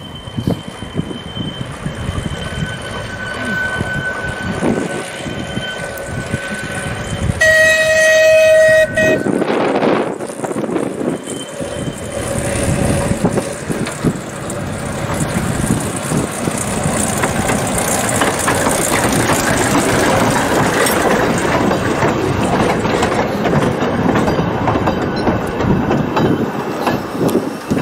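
A narrow-gauge train sounds its whistle once, a strong blast of about a second and a half some eight seconds in. The train then runs by, its running noise building and staying loud.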